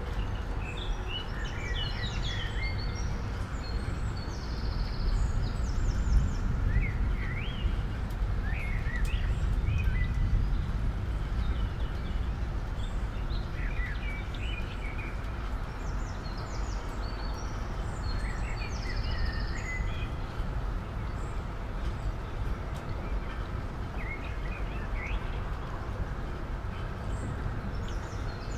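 Small birds chirping in short bouts of quick rising notes and trills over a steady low background rumble.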